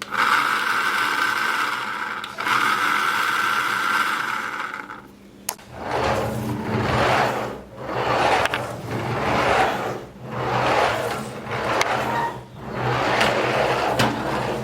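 Small electric motor of a toy remote-control car running: a steady whine for about five seconds, broken once briefly. It then gives way to a rising and falling whir, about once a second, as the motor speeds up and slows down.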